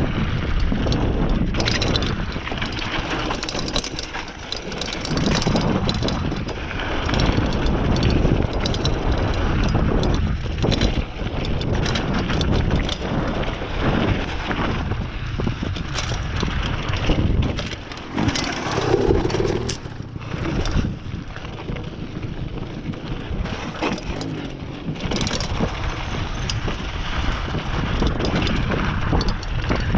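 Mountain bike riding fast down a dirt trail: tyres crunching over dirt and rocks, with frequent knocks and rattles as the bike hits bumps and heavy wind buffeting the microphone.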